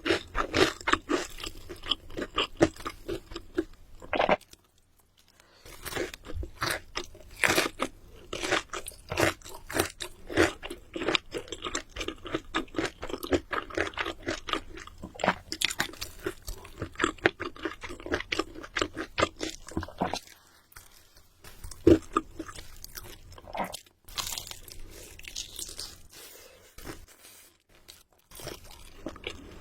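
Crunchy food being bitten and chewed close to the microphone: dense, irregular crunching, with a few short pauses.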